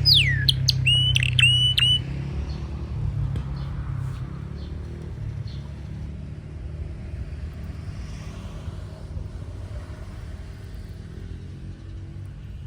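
Red canary singing: its phrase ends about two seconds in with a few short notes that rise and hold. After that only a low, steady rumble remains.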